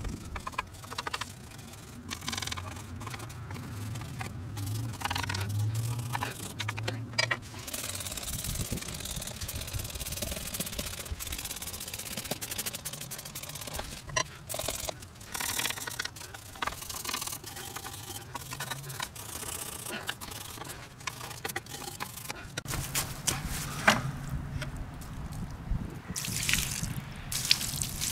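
A wire brush scrubbing a wet, degreaser-soaked steel edger frame in rough strokes, then a trigger spray bottle squirting it several times; near the end water splashes over the frame to rinse it.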